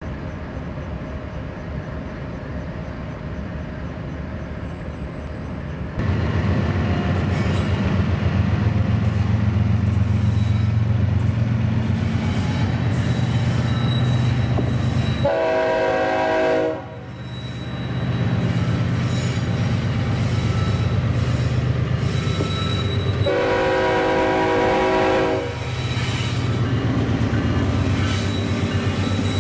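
Diesel locomotive horn on the lead BNSF ES44C4 sounding two blasts, the first about a second and a half long and the second about two seconds, some eight seconds apart. Between them comes the steady low rumble of several diesel-electric freight locomotives working past.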